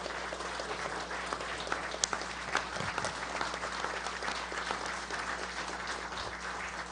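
Room of people applauding, steady dense clapping from many hands. One sharp click stands out about two seconds in, over a steady low hum.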